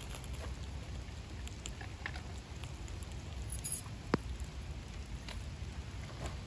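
Light rain pattering, with a steady low rumble underneath and scattered sharp ticks and crackles from a freshly lit tinder bundle of pine needles and tulip poplar bark catching fire.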